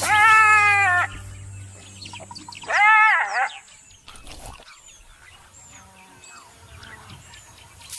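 Two loud, drawn-out yelping calls from a wild canid, each under about a second: the first slightly falling, the second rising then falling. Faint high chirps follow near the end.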